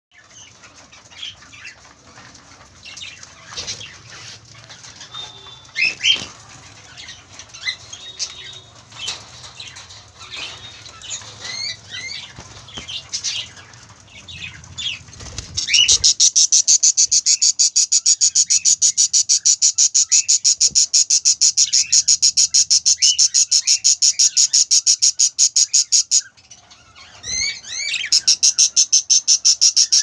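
Budgies chirping and squeaking in a wire cage. About halfway through, a loud, very rapid pulsing cheep starts up: budgie chicks begging in a clay pot nest box. It breaks off briefly near the end, with a few rising chirps, then starts again.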